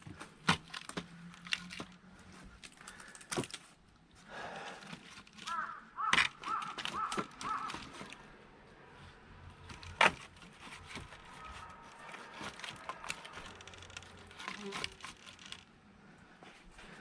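Axe splitting firewood: a series of sharp knocks and cracks, the loudest about ten seconds in. A crow caws several times around six to seven seconds in.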